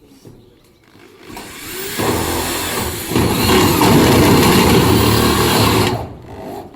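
A handheld power tool's motor runs up and works for about four seconds, louder from about three seconds in, then stops about six seconds in.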